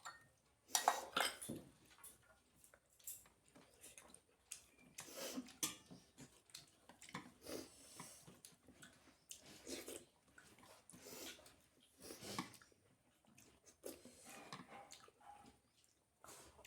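A person eating by hand close to the microphone: irregular chewing and mouth sounds with short clicks and rustles of food being handled from a plate.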